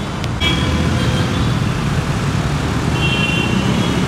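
Busy city road traffic at a junction: a steady noise of cars, auto-rickshaws and scooters running and passing.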